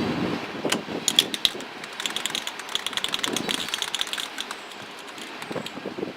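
Sharp metal clinks, then a quick run of light rapid clicks from hand tools working on the steel parts of a snow plow.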